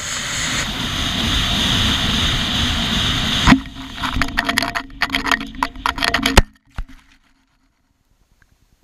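Air rushing over a homemade sugar rocket in flight, heard from a camera riding on it: a steady rushing noise for about three and a half seconds. Then a sharp crack and irregular gusty buffeting as the rocket tumbles down, ending in a hard impact about six seconds in as it lands.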